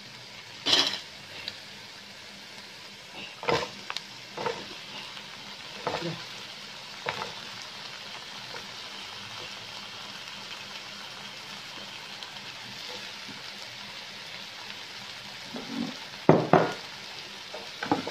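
Chopped onion and chili sizzling steadily in a granite-coated wok, with the wooden spatula scraping and knocking against the pan every second or two. A louder clatter near the end as chopped potato goes in and is stirred.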